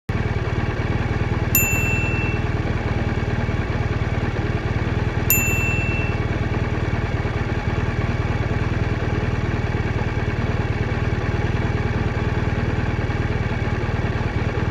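BMW R1200R's boxer-twin engine running steadily, recorded from a phone under the seat, with a deep even pulsing and no wind noise. Two short bright pings sound about a second and a half in and again about five seconds in.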